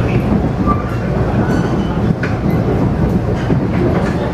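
Cabin noise of a Taiwan Railway EMU500 electric multiple unit running at speed: a steady rumble of wheels on the rails, with a couple of sharp clicks partway through.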